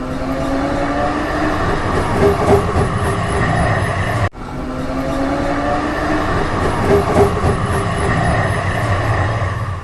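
A rumbling, clattering vehicle sound with a faint rising whine. It breaks off sharply just past four seconds and starts over the same way, as a repeating loop.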